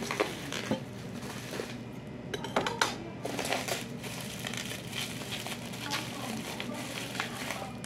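Black bubble-wrap plastic packaging crinkling and crackling as it is handled and unwrapped, in irregular crackles throughout. The loudest crackles come about two and a half to three seconds in.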